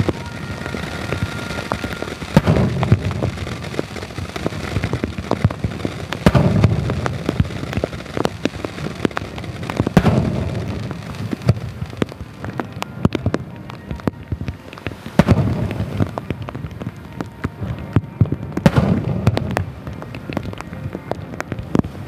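Aerial firework shells bursting overhead: about five deep booms a few seconds apart, each trailing off in a rumbling echo, with sharp crackles and smaller pops in between.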